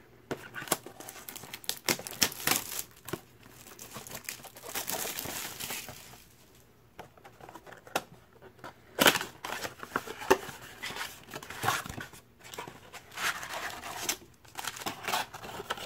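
Thin cardboard trading-card box being handled and torn open along its perforated flap: irregular scraping, crinkling and tearing, with scattered sharp clicks and the sharpest rip about nine seconds in.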